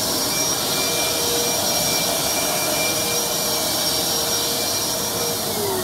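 Upright vacuum cleaner running with a steady rushing whine; near the end its motor is switched off and the whine falls in pitch as it winds down.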